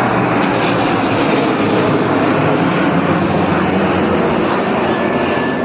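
A formation of military aircraft flying past in a flypast, a loud, steady rush of engine noise.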